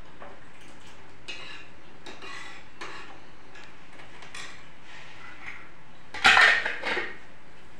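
Metal ladle scraping and clinking against a steel kadai as soup is stirred, in short irregular strokes. About six seconds in comes a louder clatter of metal utensils.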